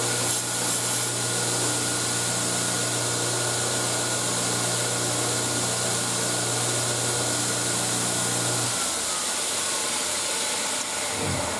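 Electric grinder running steadily with a motor hum. It is switched off about nine seconds in and winds down, its pitch falling.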